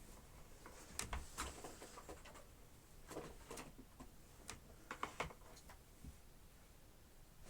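Scattered light clicks and knocks, about a dozen at uneven intervals, of a Dyson upright vacuum's plastic parts being handled while the machine is switched off.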